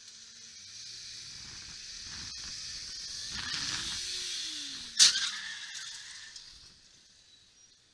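Low street traffic heard through a dash cam, then one sharp crash of a road collision about five seconds in, ringing briefly as it fades before the sound cuts out.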